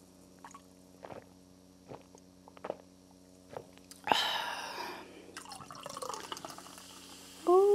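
Swallowing gulps of Coke Zero from a glass mug: about five soft gulps, then a sudden loud, breathy 'ahh' about four seconds in that fades away. A short hummed 'mm' starts right at the end.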